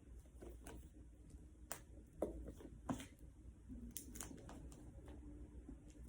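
Faint handling of a boxed iPad's packaging: scattered light taps, clicks and rustles of hands working at the box.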